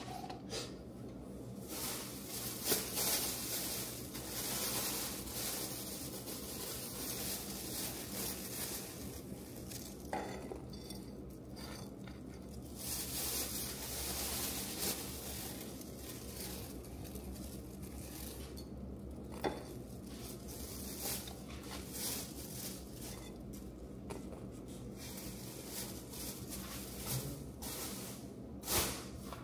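Cooking sounds: utensils clinking and scraping against pots and pans, with stretches of sizzling and scattered sharp clicks.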